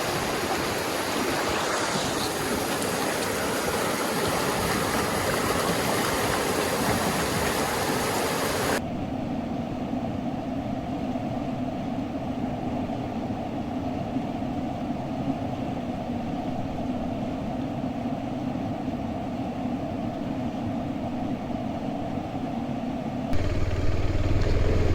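Clear stream water rushing over stones, cutting off abruptly about nine seconds in to a motorcycle's engine running steadily under way, with a louder low hum near the end.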